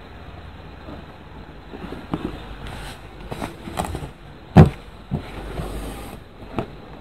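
Handling sounds of hands working cord and fabric in an embroidery hoop: scattered soft knocks and rustles, with one sharp knock a little past halfway.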